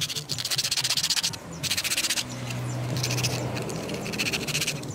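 Sandpaper rubbed quickly back and forth against a small metal piece, in four bursts of rapid scratchy strokes.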